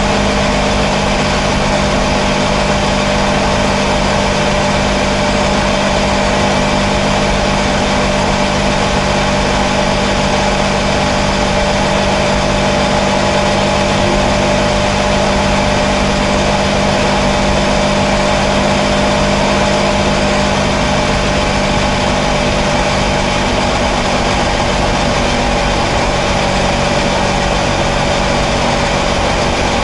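Kawasaki Versys 650's parallel-twin engine running at a steady cruise, its pitch holding nearly constant, with a continuous rush of noise from riding at speed.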